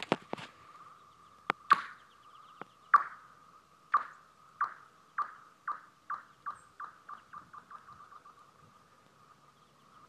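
A golf ball bouncing across thin pond ice, each bounce making the ice ring with a high, falling, laser-like 'pew'. The bounces come faster and fainter until they die out about nine seconds in, over a faint steady ringing tone from the ice.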